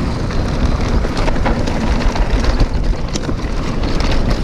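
Mountain bike riding fast down a dirt trail: wind buffeting the microphone over the rumble of the tyres on the ground, with scattered clicks and rattles from the bike over rough spots.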